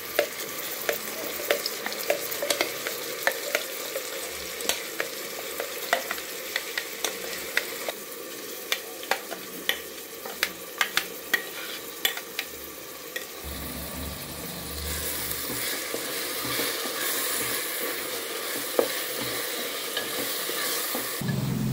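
Ground masala paste frying in hot oil with onions in a pressure cooker pot, sizzling while it is stirred, the utensil clicking and scraping against the pot many times. About two-thirds of the way in the clicks thin out and the sizzle becomes louder and steadier.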